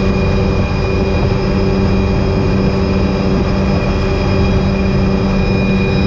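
Helicopter in flight with its doors off, heard from inside the cabin: a steady rotor and engine drone with a constant high whine, mixed with wind rushing through the open doors.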